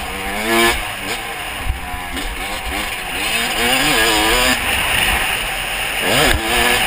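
Yamaha YZ250 single-cylinder two-stroke motocross engine revving up and down again and again as the rider works the throttle, with a rushing hiss growing from about halfway through.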